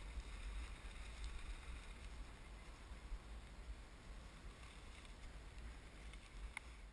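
Wind on the microphone: a low, gusting rumble over a faint hiss, with one small click near the end.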